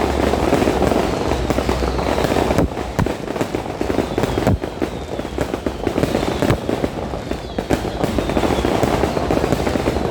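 Fireworks going off without a break: dense crackling and popping, with louder sharp bangs about two and a half and four and a half seconds in.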